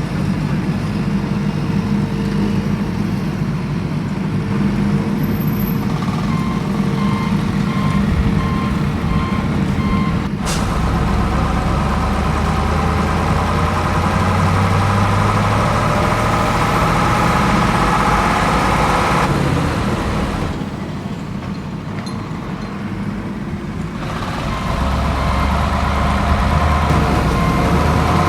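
Off-road vehicle's engine running, its pitch rising and falling through the middle. A rapid electronic beeping sounds for a few seconds about six seconds in and again near the end, and there is a sharp click about ten seconds in. The engine drops quieter for a few seconds shortly before the end.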